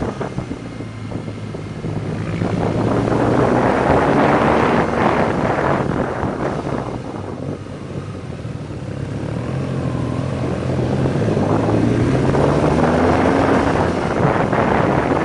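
Motorcycle engine heard from on board, its revs rising and falling through the bends, with wind noise on the microphone.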